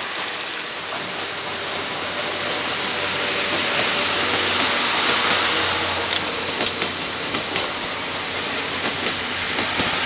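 ED75 electric locomotive hauling 12-series passenger coaches passing along the line: a steady noise of wheels on rails that builds to its loudest about halfway through and then eases off, with a few sharp clicks around six to seven seconds in.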